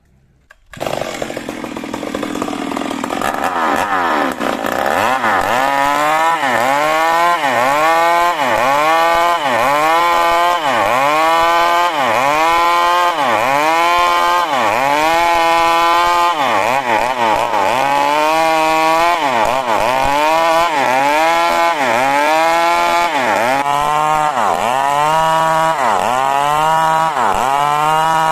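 Two-stroke chainsaw ripping coconut wood, its engine pitch dipping under load and recovering about once a second. It starts suddenly about a second in.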